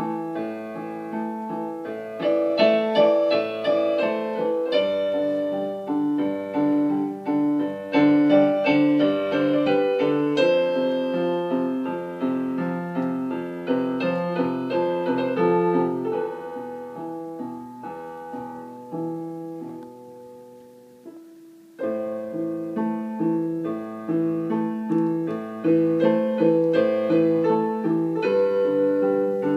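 Piano playing a steady run of notes and chords; the playing dies away for a few seconds past the middle, then starts again.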